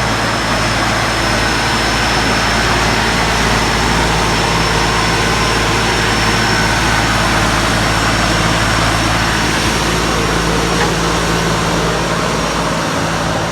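Erkunt tractor's diesel engine running steadily under a constant load, with a faint steady high whine above the engine note.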